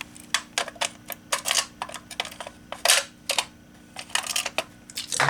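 A Simplex key working the reset lock of a fire alarm pull station: an irregular run of sharp clicks, scrapes and rattles from the key and the station's mechanism as it is reset.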